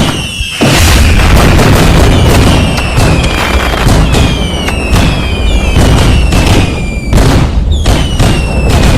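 Fireworks going off in a dense barrage: a steady run of overlapping bangs, with many whistling fireworks laid over them, each whistle a high tone that falls slightly in pitch over about a second.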